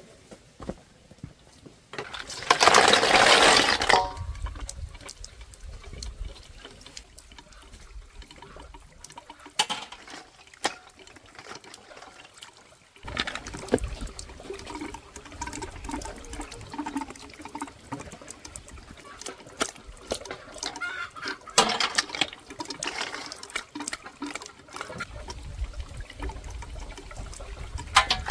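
Water being poured or splashed in a loud rush, then again more softly near the end, with scattered clinks and knocks between.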